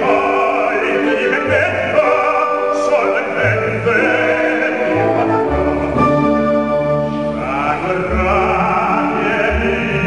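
Operatic baritone singing with vibrato over orchestral accompaniment.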